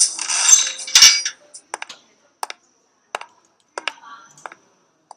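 A brief, dense rattling shake, then scattered sharp clicks and taps at uneven intervals.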